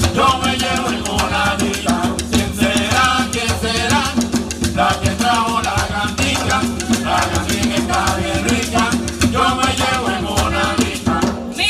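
Live Puerto Rican bomba music: barril drums played with singing voices over them. The music stops near the end.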